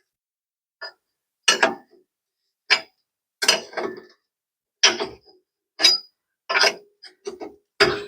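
Metal hand tools working on the van's rear suspension: short bursts of clicking and clanking, about one a second, with near silence between.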